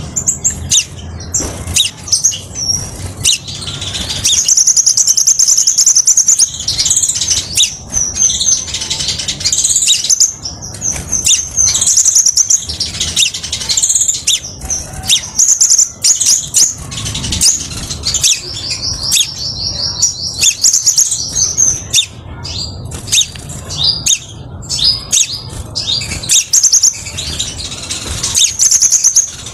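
Caged male crimson sunbird singing: fast, high-pitched twittering phrases and rapid trills, one after another with short pauses.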